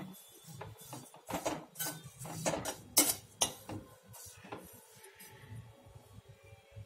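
Metal spoon scraping and clattering against a metal kadai as rolled oats are stirred while dry-roasting, in a run of quick strokes, loudest about halfway through, that stops after about four and a half seconds.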